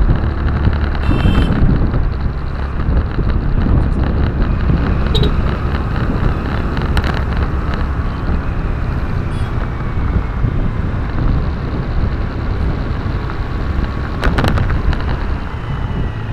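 Engine and tyre noise of a car heard from inside its cabin while it drives slowly through town: a steady low rumble with some wind on the microphone. There are two short knocks, about a second in and near the end.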